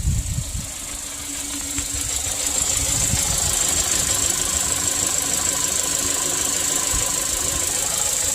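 2016 Kia Sorento's 2.4-litre four-cylinder engine running steadily, no longer misfiring on cylinder 4 after its oil-fouled spark plug was dealt with. A low thud sounds at the start, and the engine sound grows louder about two seconds in, then holds.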